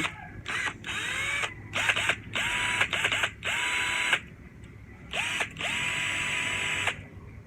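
A 20-volt cordless drill run free in repeated trigger pulls: a few short blips, then two longer runs of about two seconds. Each run rises in pitch as the motor spins up and then holds at a steady whine.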